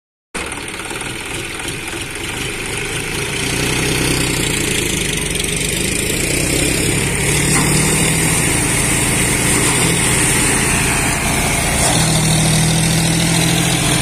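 John Deere 5045D tractor's diesel engine running steadily while driving a rice thresher, growing louder over the first few seconds, with the thresher drum turning as paddy straw is fed in.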